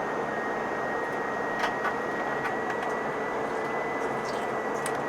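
Steady cabin noise of an Airbus A320 heard from a passenger seat: the even rush of the jet engines and airflow, with a thin steady high whine over it.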